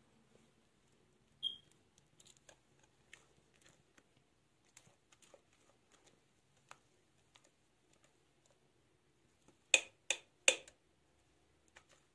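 Cake batter being scraped out of a glass mixing bowl into a metal baking tray: soft scattered scrapes and clicks, a short high squeak about a second and a half in, and three sharp taps in quick succession a couple of seconds before the end.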